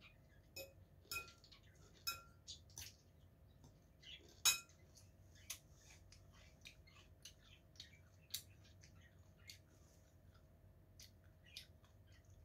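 Spoon clinking and scraping against a ceramic bowl while eating: a few sharp clinks in the first seconds, the loudest about four and a half seconds in, then lighter scattered clicks.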